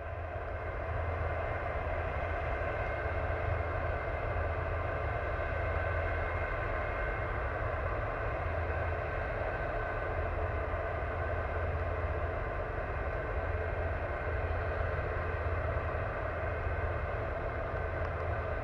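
Claas Lexion combine harvesters threshing rye: a steady drone of engines and threshing gear with a deep hum underneath. It fades in during the first second.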